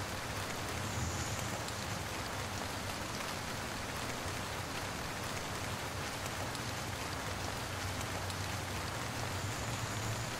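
Heavy rain falling on wet pavement: a steady, even hiss with a low rumble underneath.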